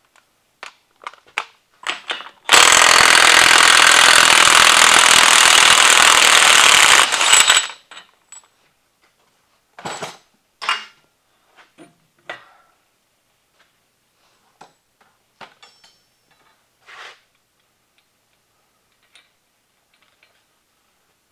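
Cordless impact wrench hammering steadily for about five seconds as it spins off the 36 mm front axle nut of a Chevy Silverado 1500. Short clicks and knocks come before and after it.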